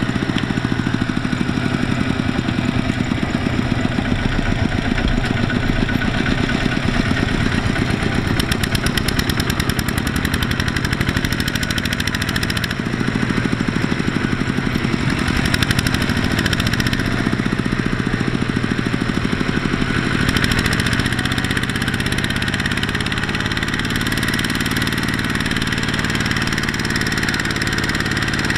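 Kubota two-wheel walking tractor's single-cylinder diesel engine running steadily under load as it pulls a trailer of rice sacks through mud.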